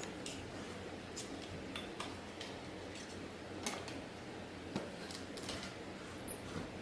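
Scattered light clicks and small metallic taps of hands working with small tools and parts on a key cutting machine, a few sharper clinks among them, over a steady low background hiss.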